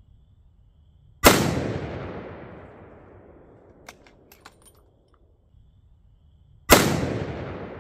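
Two centerfire rifle shots about five and a half seconds apart, the first about a second in and the second near the end. Each is a sharp crack followed by a long echo fading over a couple of seconds. A few light clicks come between the shots.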